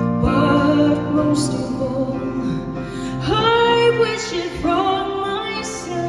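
Live music: a woman singing a slow ballad over keyboard accompaniment, with two long held, wavering notes in the second half, recorded from the audience in a reverberant concert hall.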